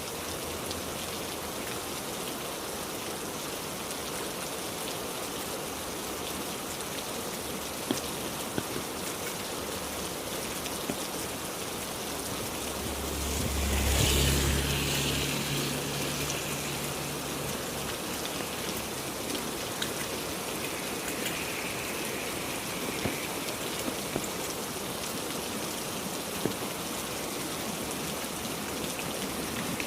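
Heavy rain falling steadily, with scattered sharper drop sounds. About halfway through, a low rumble swells up and fades over a few seconds.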